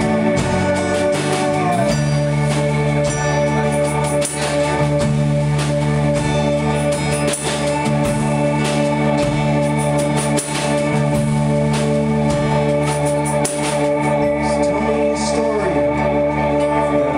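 Live rock band playing an instrumental passage: drums with cymbals, acoustic guitar, electric guitar and bass, over long held tones.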